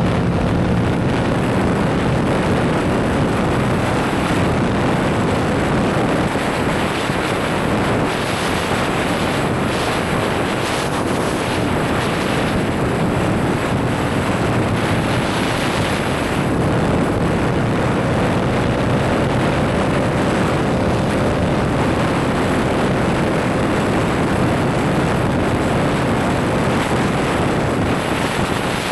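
Steady wind rush with a low rumble buffeting the camera's built-in microphone, with no let-up.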